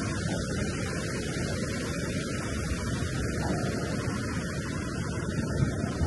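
Ocean surf washing along a sandy beach: a steady, deep rushing noise with no single crash standing out.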